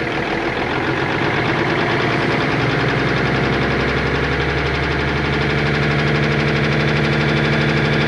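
Cummins Big Cam IV 400 inline-six diesel in a 1988 Kenworth K100E running after nine years of sitting. Its speed picks up about two and a half seconds in and then holds steady. It runs with a miss that the crew thinks might be a stuck injector.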